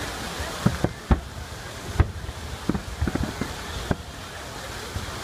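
Fireworks salute going off: about ten irregular, distant-sounding bangs over a steady background hiss. The loudest comes about two seconds in, and a quick cluster follows around three seconds.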